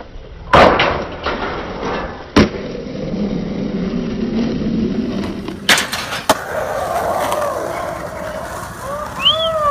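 Skateboard landing a gap onto a metal-topped ledge with a loud clack about half a second in, grinding along it, and dropping off with another clack about two and a half seconds in, then the wheels rolling on concrete. Two more sharp board clacks follow about six seconds in.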